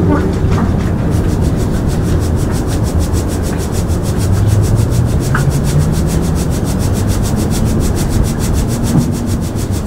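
Dried corn kernels rattling and scraping across the mesh of a wooden-framed sieve as two people shake it back and forth, a steady rasping rustle. The corn is being sifted clean before milling.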